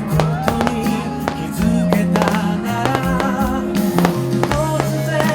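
Pop song with guitar in a passage without vocals, with sharp percussive hits through it.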